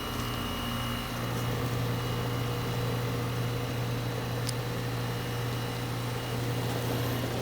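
Goodman central air conditioner's outdoor condensing unit running: a steady low compressor hum with the condenser fan. A single brief click about four and a half seconds in.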